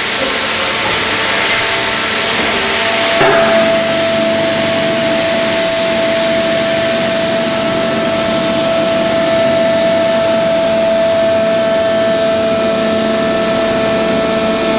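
Roundo PAS 360 section bending machine running as it rolls a flat bar into a curve. A steady mechanical drone is heard throughout, and a steady whine comes in with a click about three seconds in.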